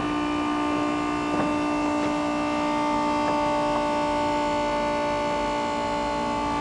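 Electric diesel transfer pump on a movable fuel tank running with a steady hum while pumping fuel.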